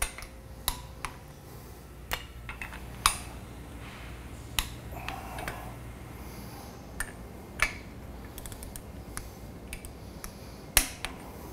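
Ratcheting torque wrench tightening steel flange bolts on a butterfly valve: irregular sharp clicks and light metal clinks, a few of them louder, over a steady low hum. The bolts are being brought up in a star pattern to the first third of their final torque.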